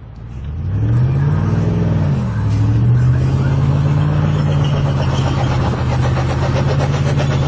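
A car engine revving up, dipping briefly about two seconds in, then held at steady high revs for several seconds.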